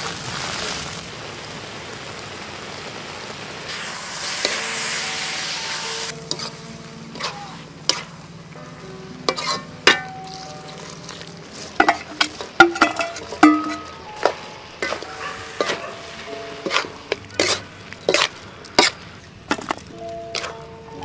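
Food frying in a wok over a fire, sizzling steadily for the first few seconds. After that, a metal ladle stirs chili paste in the wok with many sharp clinks and scrapes against the metal.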